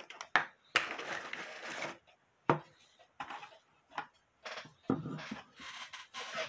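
Small hard tools and parts being handled and set down on a workbench: irregular clicks and knocks with short bursts of scraping.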